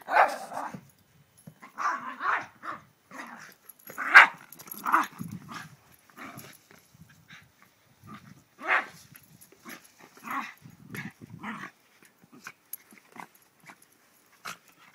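A small dog barking in short, irregular bursts as it attacks a basketball, the loudest bark about four seconds in.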